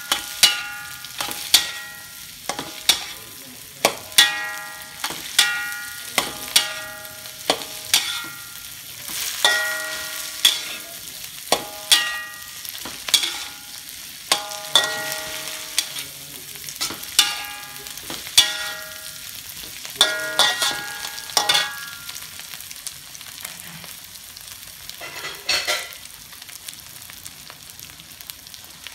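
Spatula clanging and scraping against a metal wok while stir-frying green beans and egg, each stroke making the wok ring, about once a second, over steady sizzling. The clanging stops about two-thirds of the way through, leaving the sizzle alone.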